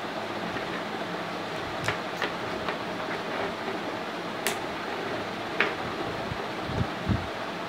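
Small hard plastic flower-shaped building blocks clicking as they are handled and pressed together, a few sharp separate clicks over a steady hiss, with two soft low thumps near the end.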